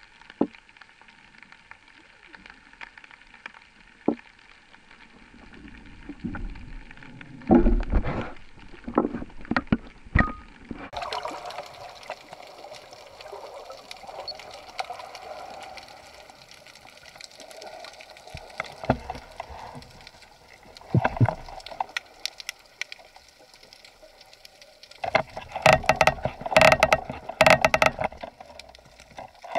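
Underwater noise picked up through a waterproof action-camera housing: a low hiss of water with scattered sharp clicks and knocks, and bursts of rushing water, loudest and most frequent near the end.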